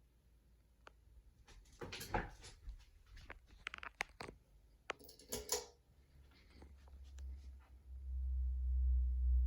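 A few sharp clicks and scratchy rustling, then a low rumble builds from about eight seconds in: the Hampton Bay Santa Cruz ceiling fan starting up, its moving air buffeting the microphone.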